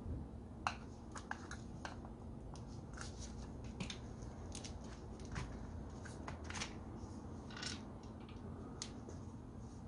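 Scattered light clicks and taps of a corded electric drill's plastic housing and small parts being handled as its cover is separated and lifted off, with one sharper click a little under a second in.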